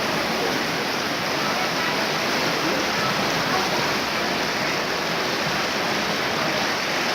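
Flooded Bagmati river rushing past in spate: a steady, even roar of fast floodwater.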